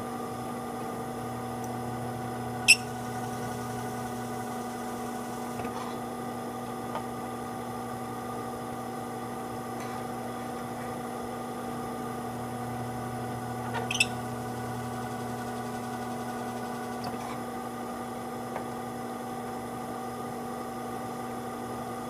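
Harbor Freight drill press running steadily at about 600 RPM, spinning a roll-crimping tool that is pressed down onto a 12-gauge shotgun shell to roll-crimp it. Two sharp clicks stand out over the hum, about three seconds in and again about fourteen seconds in.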